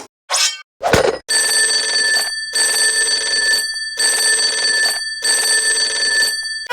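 Cartoon sound effects: a quick falling swoop and a thud, then a telephone-style bell ringing in four long rings with short breaks between them.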